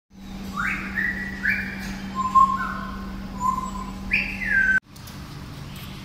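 A parrot whistling a repeated phrase of clear notes, each one rising quickly and then held, with a few lower held notes in between, over a steady low hum. It stops abruptly near the end.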